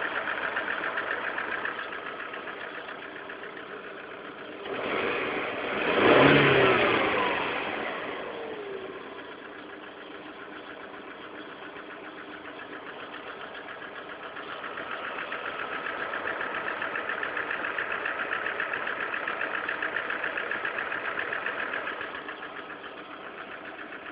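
Lada Kalina 1.4 16-valve petrol engine idling with an extraneous fast clicking rattle, the cause of which the owner does not know. About 5 s in the engine is revved once and falls back to idle, and the clicking is louder again later on.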